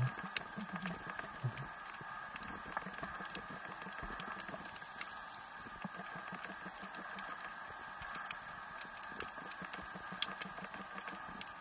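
Underwater ambience heard through a waterproof camera housing: a faint steady hum with many scattered small clicks and crackles.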